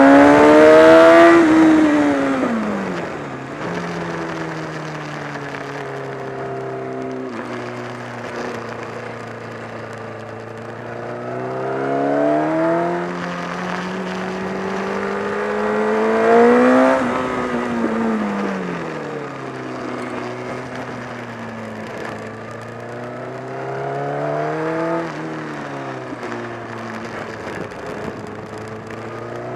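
Honda CBR1000RR inline-four engine under load on a circuit, revs climbing and dropping repeatedly through acceleration and braking, peaking about a second in, twice in the middle and again near the end. The rider reports a flapping 'bata-bata' noise from around the engine that had grown stronger, together with a loss of torque.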